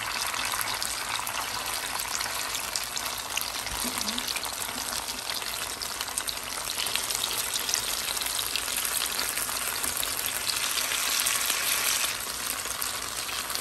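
Slices of tofu-skin (yuba) roll filled with tofu and seaweed shallow-frying in a little oil, sizzling steadily as they brown, while wooden chopsticks turn the pieces in the pan.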